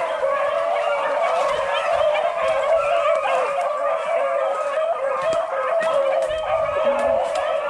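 A pack of beagles baying in chorus while running a rabbit on scent: many overlapping wavering howls that carry on without a break.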